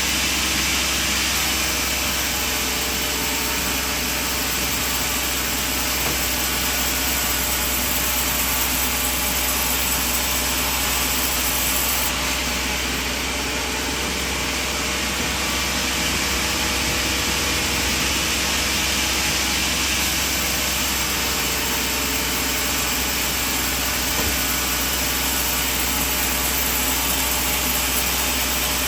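Sawmill machine running with a steady mechanical drone and constant low hum.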